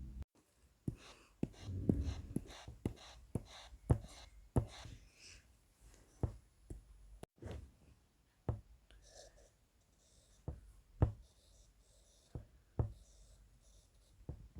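Drawing on paper: sharp taps of a drawing tool against the paper and table, with scratchy strokes in between. The taps come about twice a second at first, then more sparsely.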